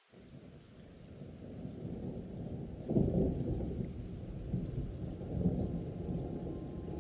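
Muffled, low rumble of a thunderstorm ambience on the soundtrack, starting abruptly and swelling, with a louder roll about three seconds in.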